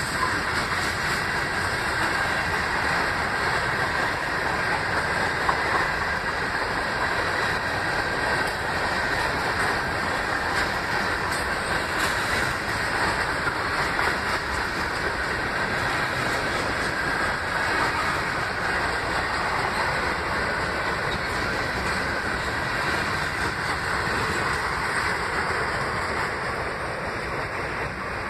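Freight cars of a passing Norfolk Southern freight train rolling by: a steady rumble and rush of steel wheels on rail with some clickety-clack. The sound eases slightly near the end as the last cars clear.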